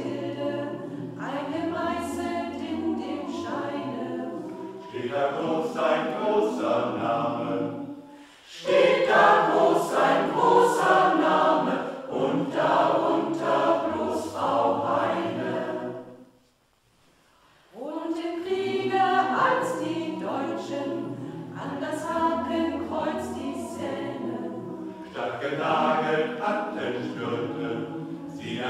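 Choir singing unaccompanied, in sustained phrases over a low bass part, with a short break about halfway through.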